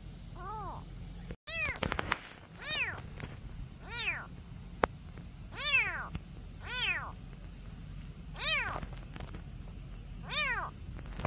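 A young kitten separated from its mother crying repeatedly: about eight meows, each rising and falling in pitch, a second or so apart. A single sharp click about five seconds in.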